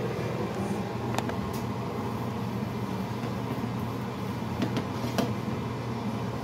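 Steady hum of a running kitchen appliance, with a few light clicks.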